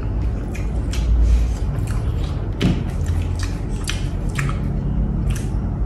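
Scattered soft clicks and rustles of a plastic cup and food wrapping paper being handled, over a steady low hum.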